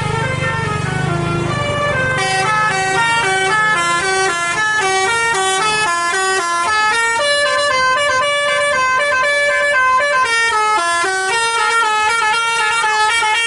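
Telolet basuri bus horn, a multi-tone musical air horn, playing a quick melody of short stepped notes. A low engine rumble runs under it for the first half.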